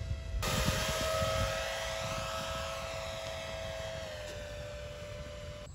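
An RC plane's twin 2212 2200 kV brushless electric motors with 6042 tri-blade propellers, heard in flight as a steady whine. It jumps louder about half a second in, and the pitch dips slightly about four seconds in.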